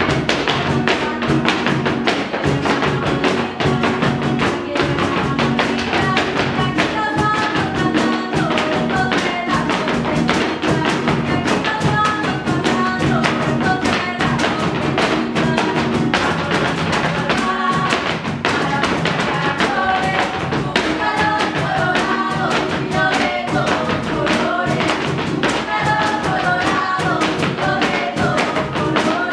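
Son jarocho music: jaranas strummed in a steady rhythm with a higher melody line over them, and the dancers' zapateado footwork tapping along.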